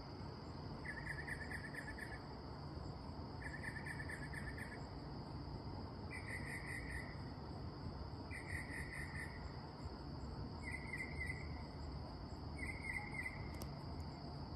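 Northern mockingbird singing at night: a short phrase of rapid repeated notes, given six times at an even pace about two seconds apart, over a steady chorus of crickets.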